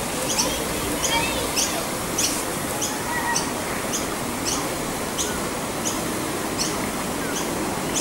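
Short high-pitched chirps repeating steadily, about one and a half a second, from a small animal in the surrounding bush, over a steady outdoor background hiss.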